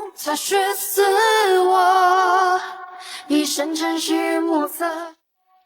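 Background music: a woman singing long held, wavering notes with little or no accompaniment, cutting off about five seconds in.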